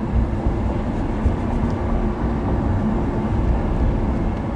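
Lamborghini Huracan's V10 engine running at a steady pitch, with wind and road noise, heard from inside the open-top cabin.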